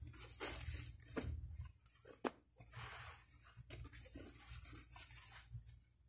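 Rustling and crinkling of packaging as a gift is unwrapped, in uneven handling noises with a few sharp crackles, the loudest about two seconds in.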